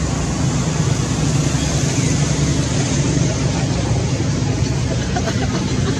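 Steady vehicle noise: a constant low engine hum under an even hiss.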